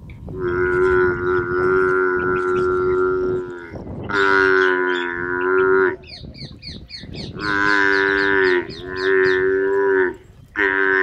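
Water buffalo lowing in five drawn-out, steady-pitched calls. The first lasts about three seconds and the rest are shorter, with brief pauses between them.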